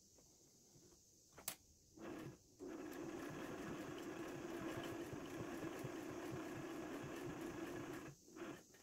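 Home sewing machine stitching through thick layers of denim: a short burst, then a steady run of about five seconds with a fast, even stitch rhythm, stopping near the end. A single sharp click comes just before the sewing starts.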